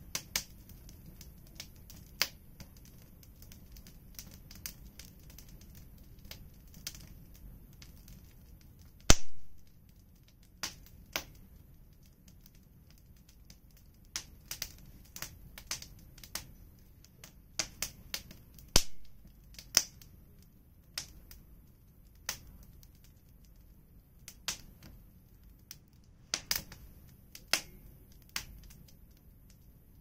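Wood fire crackling, with irregular sharp snaps and two louder pops, about nine seconds in and again about ten seconds later.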